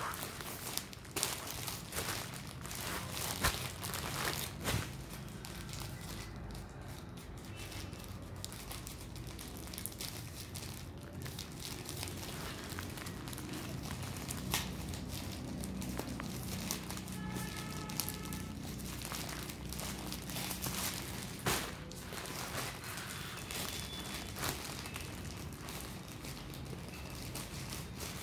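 Plastic courier mailer bag crinkling and crackling as it is handled and turned over by hand, with irregular sharp crackles throughout.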